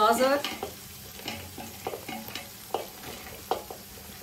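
Chopped vegetables tipped by hand into a large metal pot of fried fenugreek leaves, landing in irregular soft pats and crackles over a light sizzle of hot oil.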